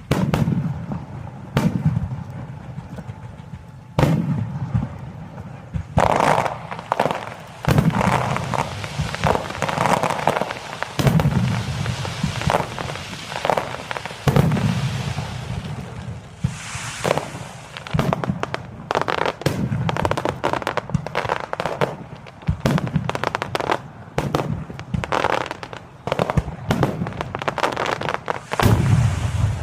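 Aerial fireworks shells bursting one after another, each a sharp boom with a lingering low rumble, with dense crackling between the bursts. The bursts come thicker and faster from about six seconds in.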